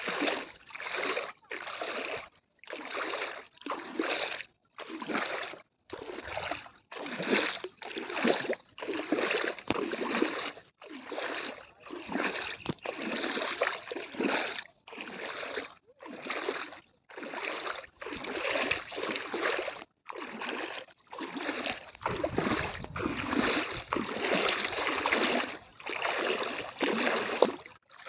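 Floodwater splashing in a steady rhythm, a little over one splash a second, each splash short with brief quiet between.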